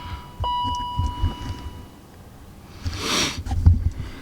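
Steady electronic warning tone from the BMW E39's dashboard, cutting off briefly and coming back for about a second and a half while the ignition is worked to prime the fuel system, with low knocks of handling. About three seconds in there is a short hissing burst.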